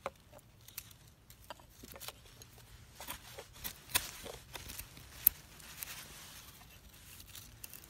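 Knife blade, an AA Forge Bushcrafter, cutting and prying into a fallen dead pine log: scattered short clicks and scrapes, the sharpest about five seconds in. The blade is opening the rotted outer wood to reach the resin-soaked fatwood core.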